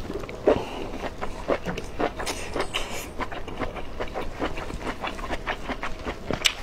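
Wet, crunchy chewing of beef tripe: a quick, uneven run of crunches and mouth clicks, several a second.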